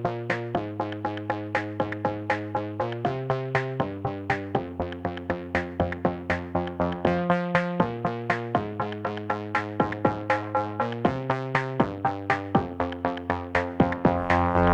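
Electronic dance music with a steady, fast beat and sustained synthesizer chords that change about every second.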